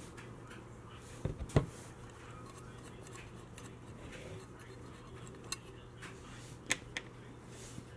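Metal clicks and knocks from handling the steel can housing of a Porsche 944 speedometer gauge as it is worked apart: a couple of sharper knocks about a second and a half in, then a few light clicks later on, over a faint steady hum.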